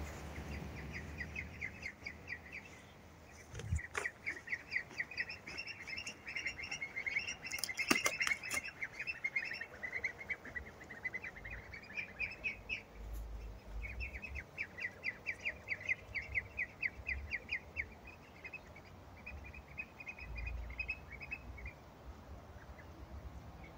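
A group of ducklings peeping, long runs of quick high peeps with a few short pauses. A few sharp knocks are heard in the first third.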